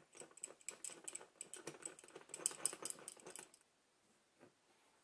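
Faint, rapid, irregular clicking and ticking of small steel parts being handled as a screw is fitted into a Wheeler action wrench on a rifle receiver. The clicking stops suddenly about three and a half seconds in, with one faint tap near the end.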